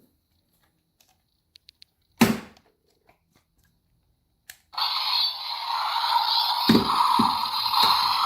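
Three quick faint beeps and a sharp click, then another click and, from about five seconds in, a loud steady rushing noise with a few low thumps, from a DX Cyclone Riser toy transformation belt.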